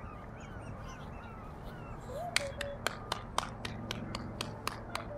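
Fingers snapping repeatedly to call puppies, a row of sharp snaps at about four a second starting about halfway through.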